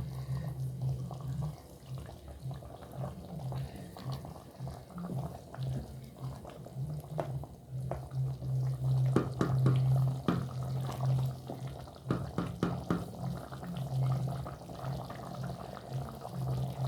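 Scattered clinks, knocks and scrapes of a serving spoon against a cooking pot and plate as cooked rice and beef stew are dished up, over a steady low hum.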